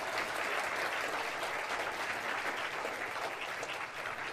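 Audience applauding: a dense, steady clapping from many people that eases slightly near the end.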